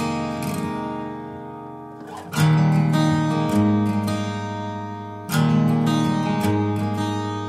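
Background music: acoustic guitar strumming chords, with a strong strum about every three seconds that rings and fades before the next.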